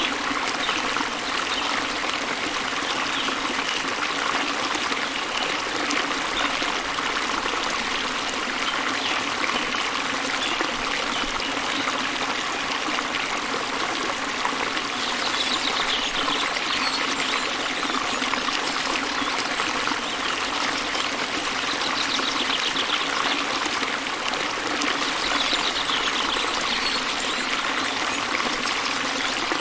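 Waterfall and stream water splashing and trickling in a steady, unbroken rush.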